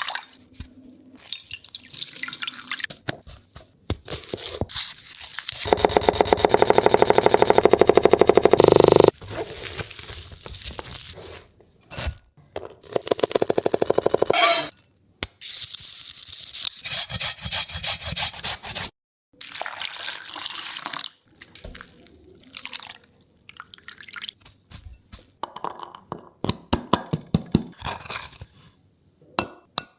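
Food-preparation sounds, a run of separate clicks, knocks and taps. Two loud stretches of rapid, even pulsing come about six seconds in and again about thirteen seconds in.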